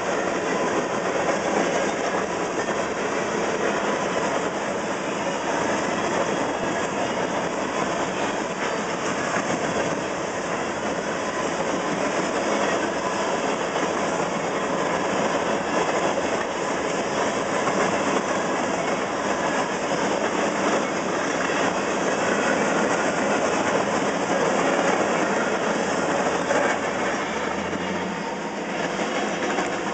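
Freight train of covered hopper cars rolling past at a grade crossing: a steady rumble and clatter of wheels on rail. The noise eases slightly near the end.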